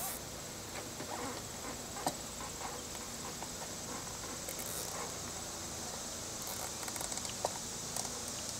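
Small scattered clicks and rustles of hands handling wiring and threading a plastic zip tie in a vehicle's engine bay, with a steady high-pitched insect chorus behind.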